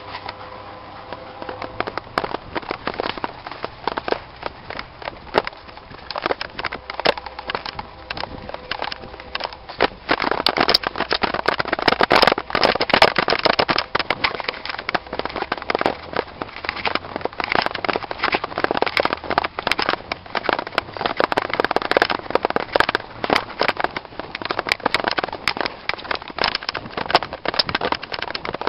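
Dense, irregular crackling and crunching of footsteps on dry leaves and grass, mixed with rubbing and knocks from the handheld camera as the person filming moves quickly; it gets louder and busier about ten seconds in.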